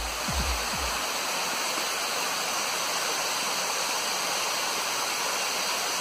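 Waterfall water rushing down rock cascades, a steady even hiss. The last few low beats of electronic dance music end about a second in.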